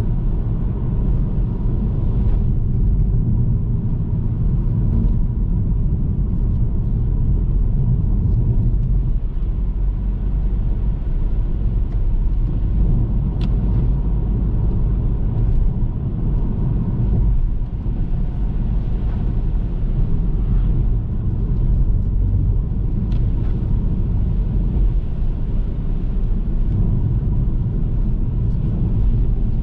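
A car being driven: steady low rumble of road and engine noise, with a few faint sharp ticks.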